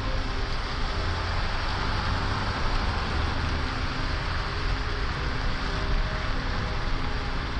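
Steady night-time city ambience: distant road traffic as an even low rumble with hiss, and no single event standing out.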